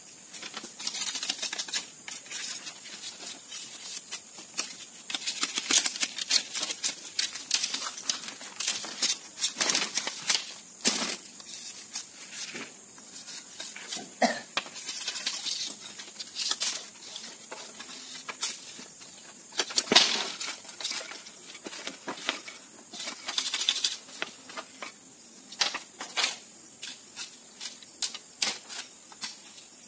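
Split bamboo strips being worked by hand: irregular clicking, cracking and rattling as the dry strips knock together and snap, with one sharper crack about two-thirds of the way through.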